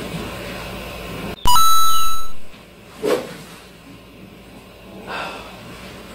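A sharp click and then a loud electronic chime of several steady tones, lasting about a second, begins about a second and a half in. About three seconds in comes the short swish of a golf iron swung through the air in an empty practice swing.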